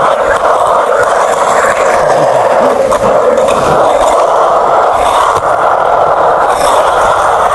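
Skateboard rolling over concrete on bare Hello ABEC 7 steel bearings, with the wheels removed, making a loud, steady scraping noise.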